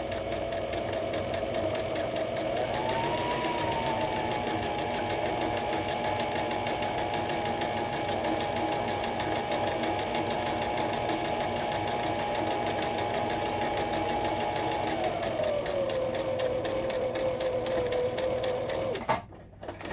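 Brother XR3774 electric sewing machine stitching a wide zigzag along a raw fabric edge, its needle going up and down in a fast even rhythm. The motor speeds up about three seconds in, slows again about fifteen seconds in, and stops abruptly near the end.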